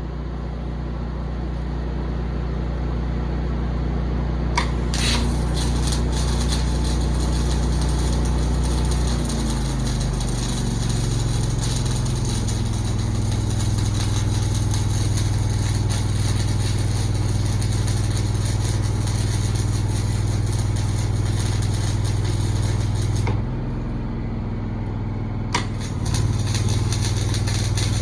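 An engine running steadily at a low drone. Its speed picks up about ten seconds in, drops back near the end, then picks up again, with a constant hiss over it.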